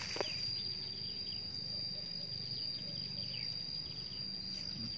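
Insects calling in one steady, unbroken high-pitched tone, with a few faint short chirps over it.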